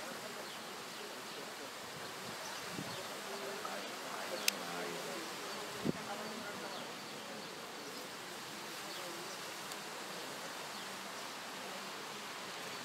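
Steady hiss of indoor arena ambience with faint, distant voices, and two sharp clicks near the middle.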